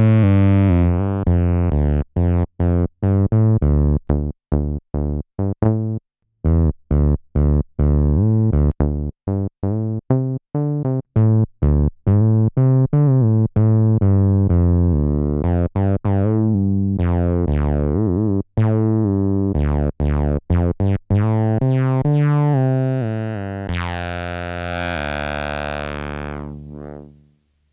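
Behringer TD-3 (a TB-303-style analogue bass synth) playing a distorted acid bassline: short, choppy pitched notes with squelchy resonant filter sweeps. Near the end one long note is held with the filter sweeping up and down, then it fades away.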